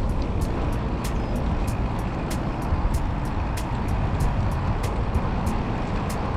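Wind and tyre rumble on the camera of a road bike riding a paved path, steady and low-heavy, with sharp light clicks two or three times a second.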